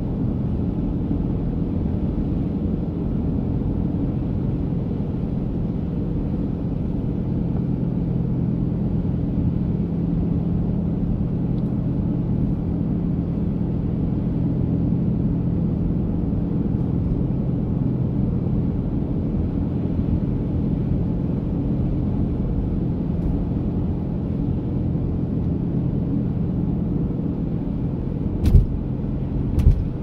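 Steady in-cabin drone of a car driving on a snow-covered highway: low engine hum and tyre rumble. Two sharp thumps near the end, about a second apart.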